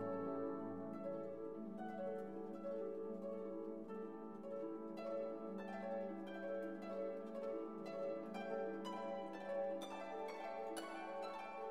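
Instrumental background music: plucked notes over held chords, the plucked notes coming more often from about five seconds in.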